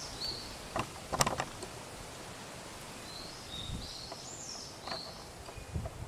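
A bird singing high, short phrases that rise and fall, twice, over steady outdoor background noise, with a few sharp clicks about a second in.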